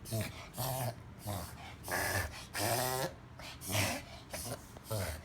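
A dog reverse sneezing: a run of short, forceful gasping inhalations through the nose, repeating a little under twice a second.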